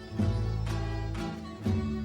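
An acoustic folk ensemble playing the instrumental opening of a ciranda, led by strummed acoustic guitar over deep bass notes, with new strums near the start and again near the end.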